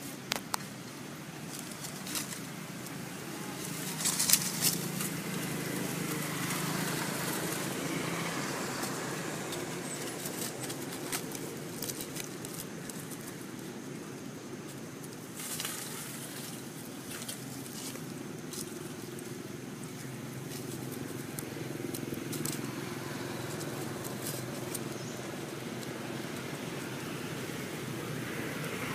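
Dry leaves crackling and rustling in short bursts as macaques shift about on the leaf litter. A steady low outdoor background hum runs underneath.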